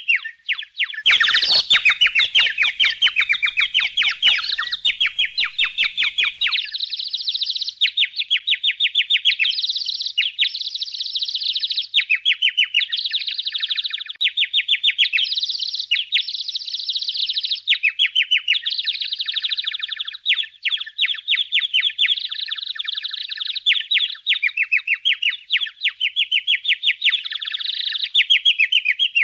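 Budgerigars chattering: a continuous, rapid stream of high chirps and warbles from several birds, with faint rapid ticking under it for the first six seconds or so.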